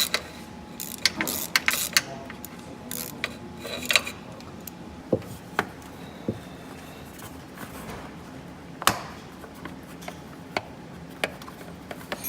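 Scattered clicks and knocks of plastic trim being handled as the battery cover on a Tesla Model S's 12 V battery is unclipped and taken off. The clicks are busiest in the first few seconds, then come singly, with one sharper knock about two thirds of the way in.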